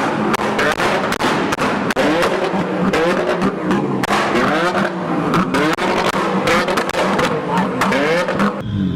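Nissan Skyline R34 GT-R's twin-turbo RB26DETT straight-six being blipped over and over, rising and falling in pitch, with sharp anti-lag pops and bangs crackling throughout. It cuts off abruptly just before the end.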